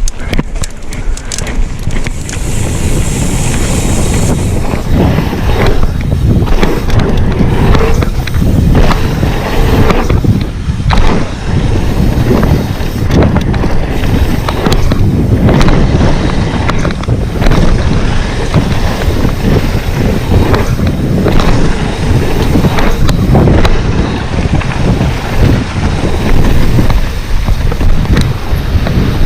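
Wind buffeting a moving action camera's microphone over a rough, rumbling ride noise, loud and constant with irregular dips and surges.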